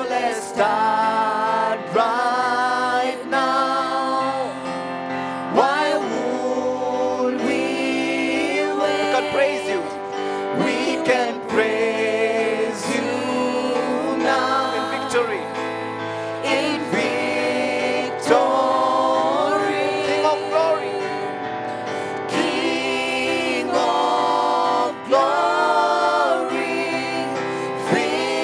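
Gospel worship song sung by voices over a steady instrumental accompaniment.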